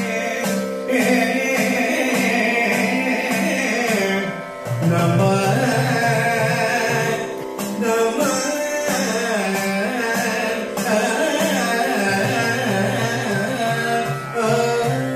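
A man singing an Indian classical-style song into a microphone over a steady drone, accompanied by an idakka, the Kerala hourglass drum struck with a stick. The music dips briefly about four and a half seconds in.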